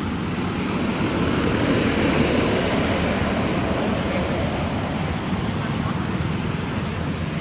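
Steady outdoor noise: a low rumble and a constant high hiss, with no distinct events.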